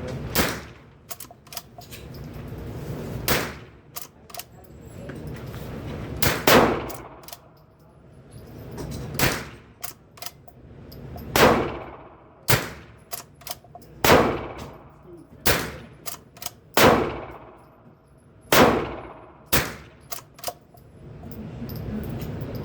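Rossi Bravo .22LR lever-action rifle firing a string of about a dozen shots, one every second or two, each with a ringing tail and light metallic clicks of the lever being worked between shots.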